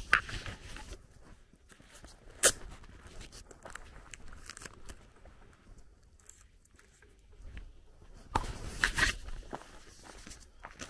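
Footsteps crunching on a gravel lane, irregular and close, with two sharp knocks in the first few seconds and a denser burst of crunching about eight seconds in.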